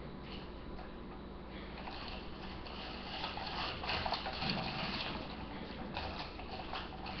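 Spoon stirring and scraping icy homemade slushie in a plastic cup: soft wet clicks and crunches, busier from about three seconds in.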